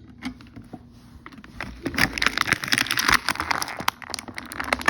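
Toy packaging of plastic and cardboard being handled and opened, crinkling and crackling with many quick clicks, getting louder and busier about two seconds in.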